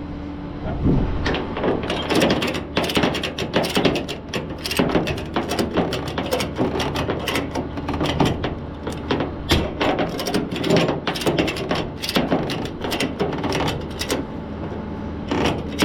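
Ratchet of a tow truck's wheel tie-down strap being worked, a long run of fast, uneven clicks as the strap is tightened around the tire, over a steady low hum.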